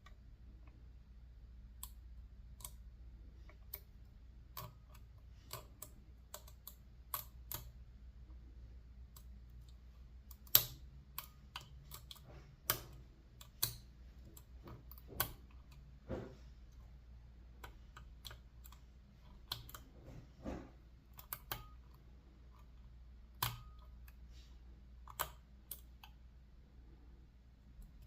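Lock picking in a U.S. Set Paclock 95G solid brass padlock: the pick and top-of-keyway tensioner working the pins, giving irregular light clicks and taps, a few sharper clicks with a brief metallic ring, the loudest about ten seconds in.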